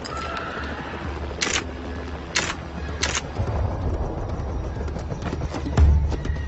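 SLR camera shutter firing three times, a short sharp click each, over a steady low rumble, with a deep thump near the end.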